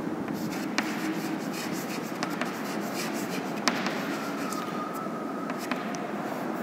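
Chalk scratching across a blackboard as words are written, with scattered sharp ticks as the chalk strikes the board.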